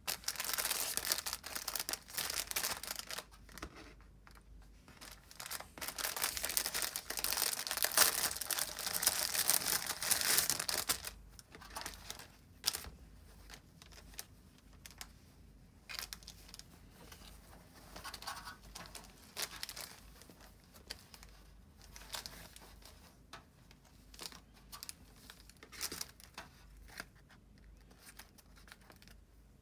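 Thin plastic wrapping crinkling and tearing as it is opened by hand, in two dense spells over roughly the first eleven seconds. After that come scattered, quieter rustles of plastic and cotton cloth being handled.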